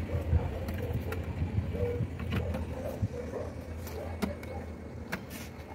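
Wire ties being pushed through holes in wooden concrete formwork, giving a few scattered light clicks and scrapes of wire on wood over a steady low rumble.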